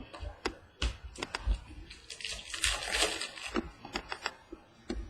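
Trading cards being handled: several light clicks and taps, with a longer rustling slide of cards or pack wrapper about two seconds in.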